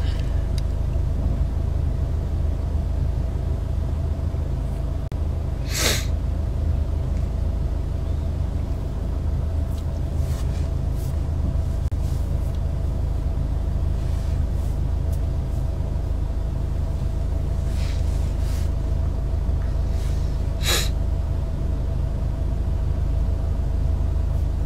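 Steady low rumble of a moving car heard from inside the cabin, with a faint steady hum, and two brief hisses, about six seconds in and again near the end.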